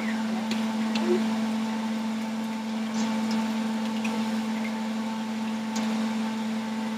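Countertop blender running steadily, with a few faint ticks over its motor hum.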